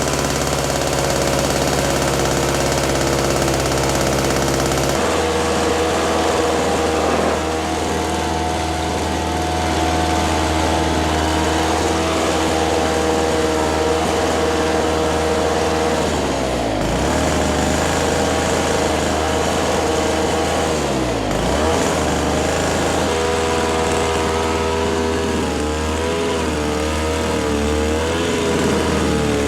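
Toro Snowmaster 20 snowthrower's small two-stroke engine running. Its speed shifts about five seconds in, dips briefly twice in the middle and recovers, and wavers up and down near the end.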